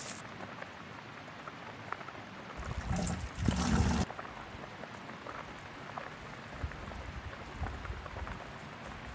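A small snowmelt trickle running steadily over the ground while plastic water containers are filled from it. A louder rush of water noise comes about three seconds in and lasts over a second.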